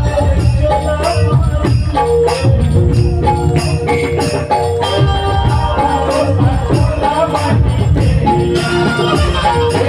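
Live Chhattisgarhi devotional bhajan music without vocals: drums beating densely, with jingling percussion under a held melody line.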